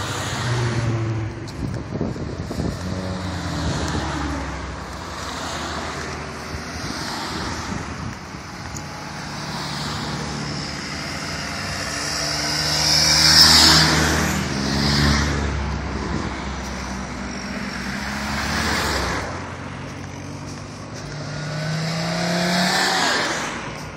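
A line of Volkswagen cars driving past one after another, each engine and its tyre noise swelling and fading as it goes by, the loudest about thirteen seconds in. Near the end one car accelerates past with a rising engine note.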